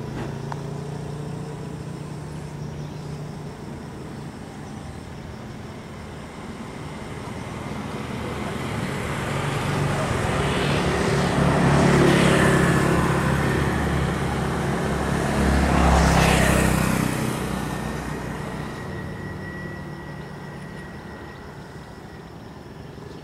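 Two road vehicles passing close by one after the other, about four seconds apart, each swelling and then fading, over a steady low hum.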